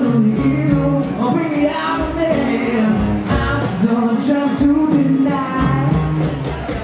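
A man singing a melody with long held, gliding notes while playing an acoustic guitar, amplified live through a microphone.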